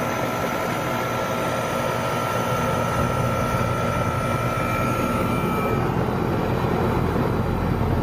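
Goodman air conditioner's outdoor condensing unit running steadily, its compressor and condenser fan going while R-22 is being added to an undercharged system. A thin, high steady whistle stops about six seconds in.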